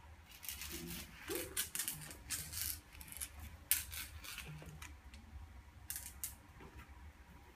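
Kitten playing with a wand toy on a hard floor: a quick run of scratchy rustles and light clicks, dense through the first half, with a couple more near the end.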